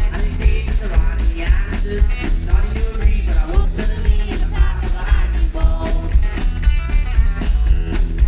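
Live rock and roll song: a male voice singing over a strummed Telecaster-style electric guitar, with a steady beat.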